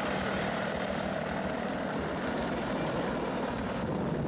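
Mi-28 Havoc attack helicopter in flight: steady rotor and twin turboshaft engine noise.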